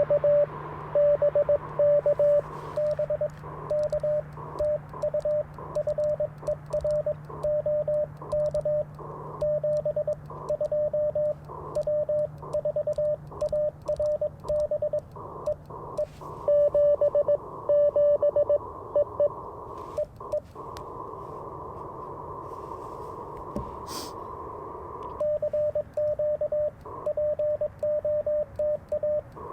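Morse code (CW) from an Icom IC-705 ham radio transceiver: a loud stream of dots and dashes at one steady pitch, with fainter, higher-pitched Morse from other signals behind it. About two-thirds of the way through, the keying pauses for a few seconds of steady receiver hiss and a single click, then the code resumes.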